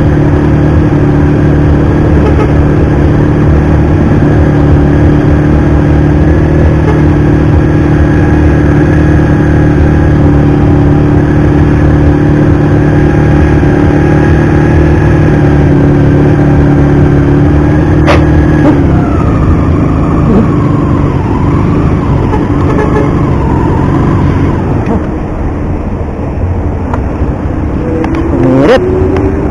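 Motorcycle engine running steadily. About two-thirds of the way through, the steady note drops away and the sound turns uneven, with a rising note near the end.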